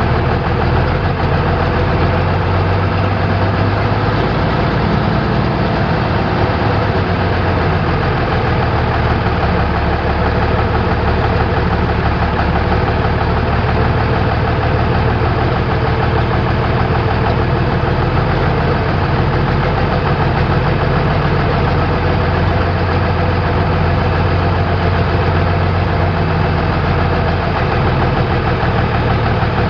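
Cummins six-cylinder diesel engine of a 1971 Ford grain truck idling steadily.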